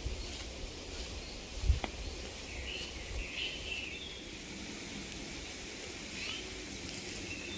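Birds chirping in short calls over a steady hiss of outdoor ambience, with one brief low thump a little under two seconds in.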